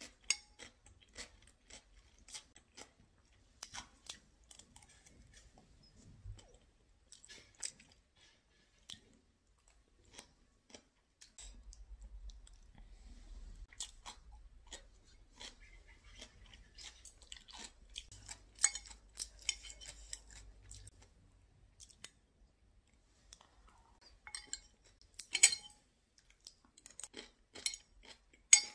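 Close-up eating sounds: chewing and crunching, with scattered small clicks and taps, louder for a moment about 25 seconds in.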